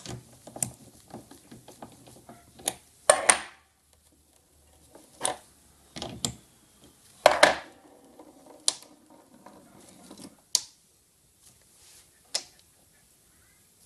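Metal clicks, knocks and scrapes of a socket driver turning the cutting-arm pivot nuts on a brake lathe cutting head, setting the arm tension. Louder clunks come about three, six and seven seconds in, and the clicks thin out toward the end.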